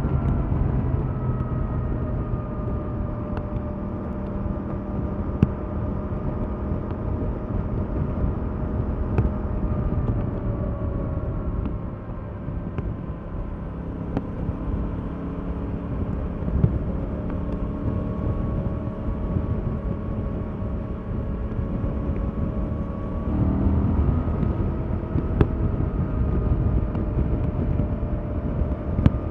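Stock 2021 Yamaha MT-07's 689 cc parallel-twin engine running at a steady cruise through its standard exhaust, over a low wind and road rumble. The engine's pitch sags a little through the middle, then steps up near the end as the throttle opens.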